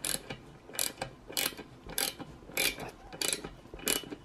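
Small hand socket ratchet clicking in short runs, about one stroke every 0.6 seconds, as it tightens the nut on a homemade bolt-and-socket puller pressing a swingarm bearing out.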